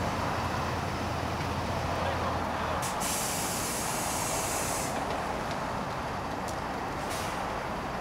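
Heavy diesel machinery of a paving crew running steadily, the low engine hum dropping away about three seconds in as a truck's air brakes let out a loud hiss lasting about two seconds; a shorter air hiss follows near the end.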